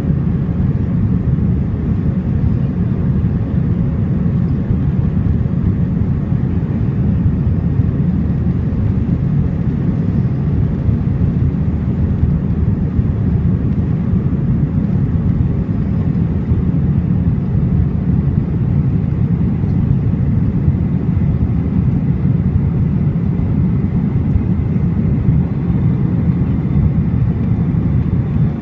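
Cabin noise inside an Airbus A319 climbing out after takeoff: a steady, loud, deep rumble of jet engines and airflow, with a faint steady hum above it.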